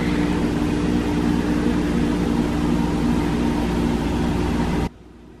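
Steady machine hum, like a running fan or motor, with a low droning pitch over a rushing noise. It cuts off abruptly near the end, leaving quiet room tone.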